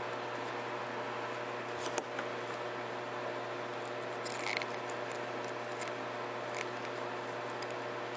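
Side cutters snipping off single copper strands of heavy silicone-insulated wire: a few small clicks, the sharpest about two seconds in, over a steady hum.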